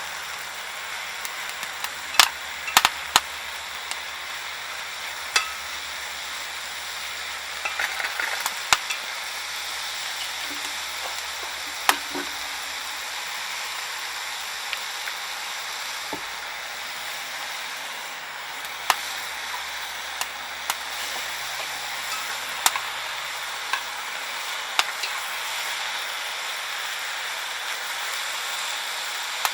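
Conifer-wood cooking fire crackling, with about a dozen sharp, irregular pops over a steady sizzling hiss.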